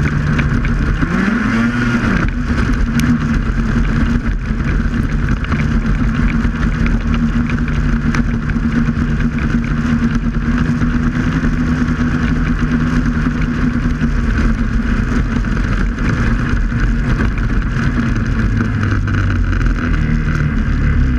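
Snowmobile engine running at speed across the ice. Its pitch rises about a second in, then holds steady.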